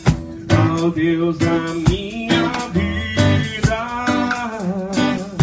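Worship song with sung vocals over guitar and a steady drum beat; from about two seconds in, the singer holds long, wavering notes.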